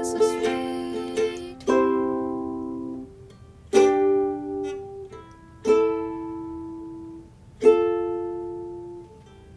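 Ukulele playing alone: a quick strummed passage, then four single chords struck about two seconds apart, each left to ring out and fade.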